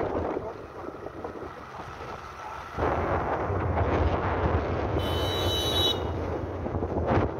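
Wind rushing over the microphone of a moving TVS motorcycle, with the bike running underneath. The rush drops off for a couple of seconds, then comes back strongly about three seconds in.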